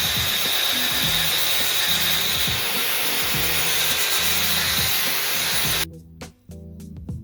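A power tool abrading metal: a steady, loud grinding noise that cuts off suddenly about six seconds in.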